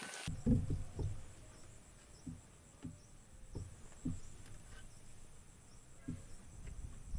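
Steady high-pitched insect chirring, crickets or cicadas, with a few soft, irregular low thuds nearby.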